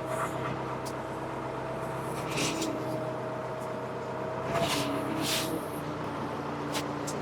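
Ford 555C backhoe engine running steadily. Its pitch dips about four and a half seconds in and steps down again a second later, with a few short hissing sounds over it.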